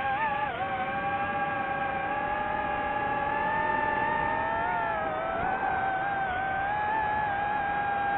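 DJI FPV drone's motors and propellers whining in flight: a steady pitched hum that wavers with the throttle, rising slightly in the first second and dipping briefly about five seconds in.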